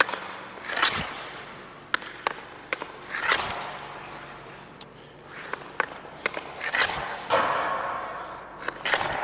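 Hockey slapshots taken with a Bauer Agent composite stick: several sharp cracks of the blade striking the ice and puck, each followed by a swell of noise as the shot rings and echoes around the rink.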